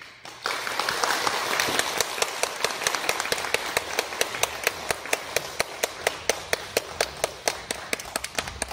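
Audience applause in a hall, with one person's claps close by standing out at about five a second. It starts about half a second in.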